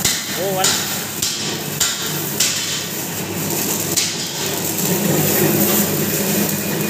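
Hammering, four sharp knocks a little over half a second apart and then one more about a second and a half later, over a steady low hum.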